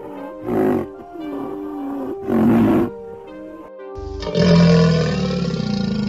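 Animal calls over background music: two short rough calls from a rhinoceros about two seconds apart, then, about four seconds in, a loud, deep growling roar from a crocodile lasting over two seconds.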